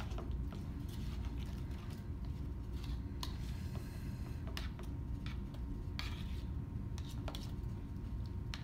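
Spatula stirring a wet egg-and-herb frittata mixture in a mixing bowl, with irregular scrapes and light knocks against the bowl, over a steady low hum.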